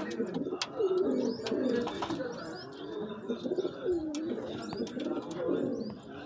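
Domestic pigeons cooing over and over, a low coo dipping and rising in pitch about once a second, with high bird chirps and a few sharp clicks above it.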